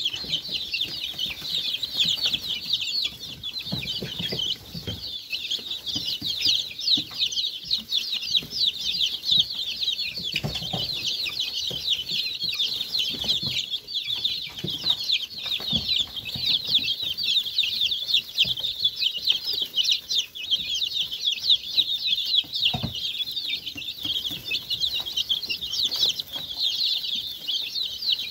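A flock of young chicks peeping all at once, a dense, unbroken chatter of short, high, falling cheeps, excited by a treat of cottage cheese they are pecking at. A few dull thumps sound underneath.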